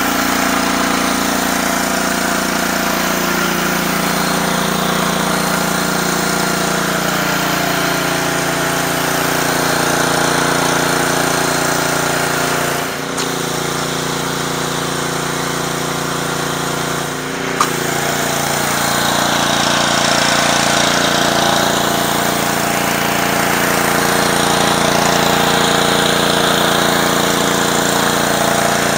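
Honda GCV190 single-cylinder engine of a gas pressure washer running steadily under load, with the hiss of high-pressure water spraying through a surface cleaner on concrete. The sound briefly dips twice, about 13 and 17 seconds in, the second time with a sharp click.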